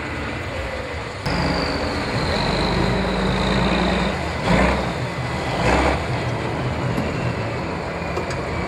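Heavy diesel engine of a Tatra 8x8 trial truck running under load as it crawls over rough sand-pit ground, with a high whine that slowly falls in pitch. Two short louder surges come about four and a half and six seconds in.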